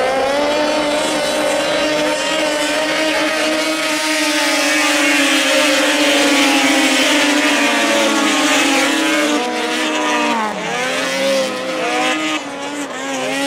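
Race car engine running hard at a steady high pitch. Near the end the revs dip and climb back up a couple of times.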